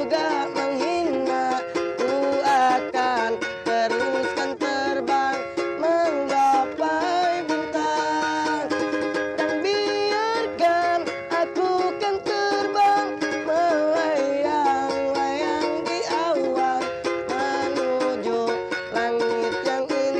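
A busker strumming a small acoustic guitar and singing a pop song along to it, in a steady unbroken flow.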